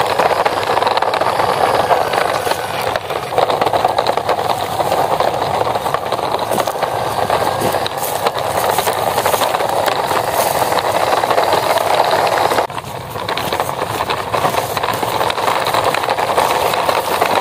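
Red plastic toy dump truck pulled on a string over dry grass and cracked, dry earth: its plastic wheels and body rattle and crunch steadily along the ground, with a brief drop about two-thirds of the way through.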